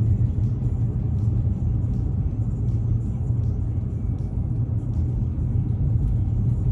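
Steady low road-and-engine rumble heard inside the cabin of a 2018 Dodge Challenger all-wheel drive cruising along a highway.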